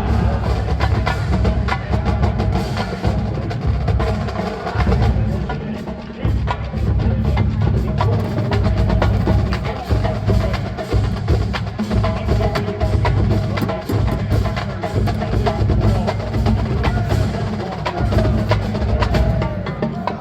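Marching band drumline playing a percussion cadence: a busy rhythm of sharp clicks over heavy low drum hits, going without a break.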